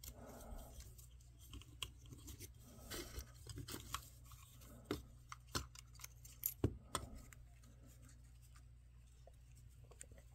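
Faint, scattered clicks and taps of small plastic action-figure parts being handled, from a GI Joe muscle body being re-strung with elastic. Most of the clicks fall in the first two-thirds, and it grows quieter near the end.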